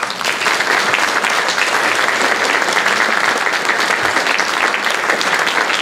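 A congregation applauding: many hands clapping, breaking out suddenly and staying loud and steady.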